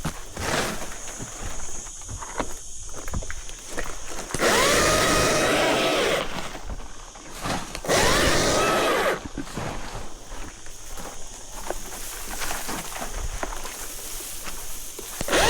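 Battery chainsaw run in two short bursts of cutting, its electric motor whine rising in pitch as it spins up each time, with a third burst starting at the very end. Between the cuts, rustling and scattered clicks of branches being handled.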